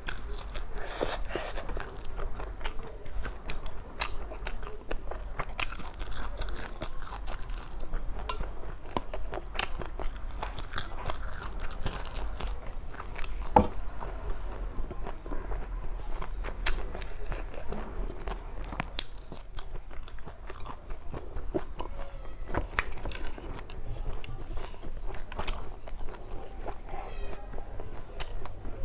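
Close-miked eating: a person chewing and biting, with many short wet clicks and crunches from the mouth.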